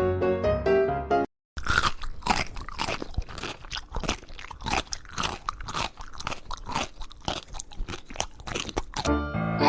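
Close crunchy chewing: quick, irregular crunches, several a second, for about seven seconds. Before it, piano music cuts off about a second in, and music briefly returns near the end.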